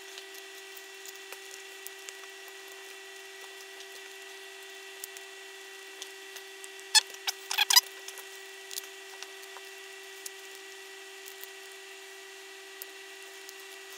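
Small clicks and taps of 3D-printed plastic compressor parts being handled and slid into their casing, with a louder cluster of clicks about seven to eight seconds in, over a steady faint hum.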